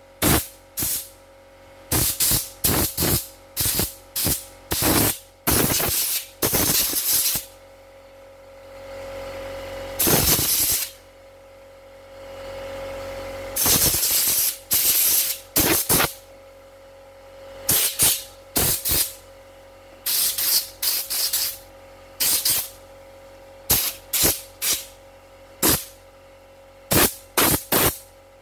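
Pressurised spray hissing in many short, quick squirts, with two longer sprays of a second or two near the middle, aimed into an embroidery machine's needle-bar mechanism to clean out packed dirt.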